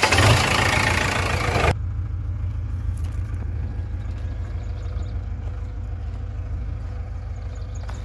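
JCB backhoe loader's diesel engine running loudly, heard close up at the engine bay just after starting. About two seconds in, the sound drops abruptly to a steady, lower engine rumble that runs on.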